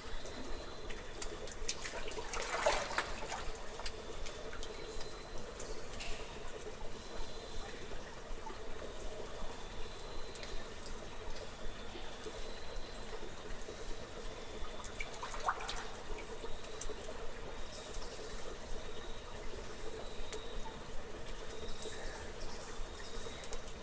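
Cave ambience of water trickling and dripping over a steady background hiss, with a few brief louder sounds, the strongest about two and a half seconds in.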